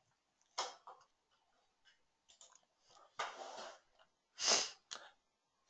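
A few quiet, short noises from the presenter close to the microphone: breaths and mouth clicks. There is a sharp click early on, a breath a little past three seconds, a louder breath about four and a half seconds in, and another brief click right after it.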